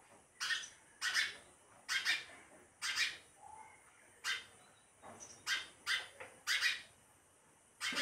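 A sparrow chirping: a series of short, separate chirps, roughly one a second, some coming in quick pairs.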